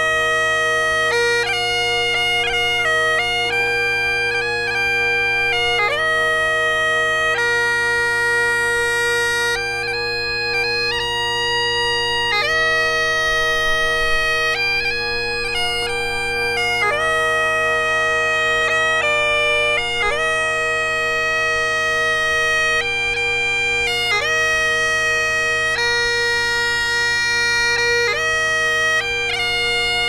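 Great Highland bagpipes played solo: steady drones sounding under a chanter melody that moves between held notes and quick ornaments.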